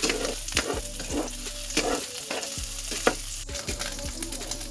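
Cubed pork sizzling in hot oil in a frying pan, with a spatula scraping and knocking against the pan now and then as the pieces are stirred.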